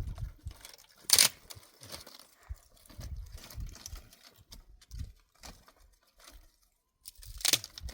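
Irregular knocks and thumps, with two sharp, loud cracks, one about a second in and one near the end.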